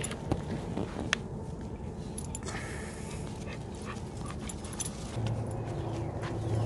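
American bully dogs making soft vocal sounds as a puppy noses at a dog lying in the grass, with a few small clicks early. About five seconds in, a low, drawn-out growl-like sound begins and holds.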